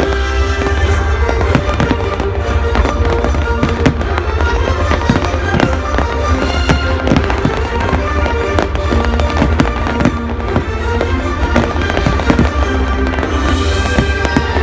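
Fireworks going off in many sharp bangs and crackles throughout, over loud music from the display's sound system and a steady low rumble.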